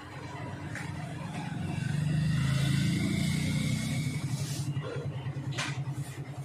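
Low engine rumble of a passing motor vehicle, building to a peak about two to three seconds in and then easing off.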